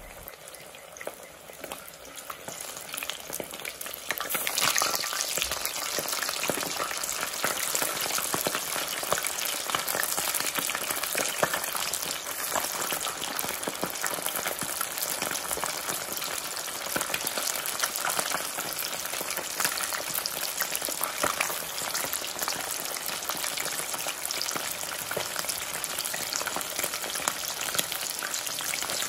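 Chicken wings deep-frying in hot oil: a steady sizzle full of fine crackling pops. It swells sharply about four seconds in, as the rest of the chicken goes into the oil, and stays loud.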